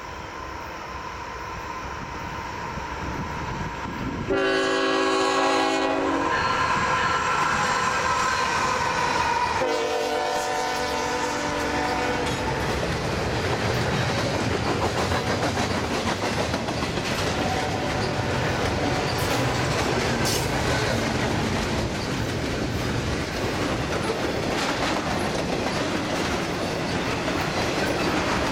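Freight train locomotive horn sounding in two long blasts from about four to twelve seconds in, the second lower in pitch as the locomotives pass. Before it the approaching engines grow louder; after it a long train of double-stack container well cars rolls past with steady wheel clatter.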